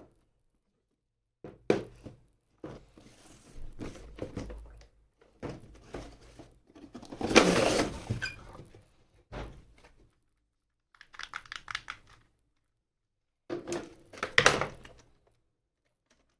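Toy packaging being handled and opened: knocks, tearing and crinkling of box and plastic in several separate bursts, the loudest about halfway through.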